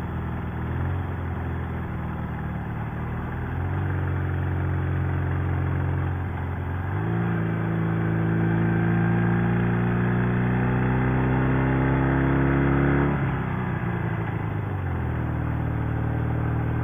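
Chinese sidecar motorcycle's overhead-valve engine under way. Its note climbs, dips twice, then rises steadily and gets louder for several seconds before dropping off about thirteen seconds in and settling to a steady cruise.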